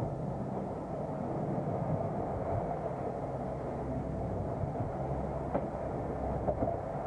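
A boat's engine running steadily, a low, even drone with no let-up.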